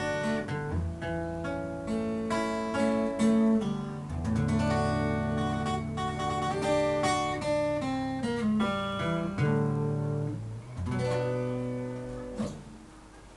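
Acoustic guitar played solo, strummed chords mixed with picked melody notes. The playing thins out late on and closes with one louder chord near the end that rings and fades.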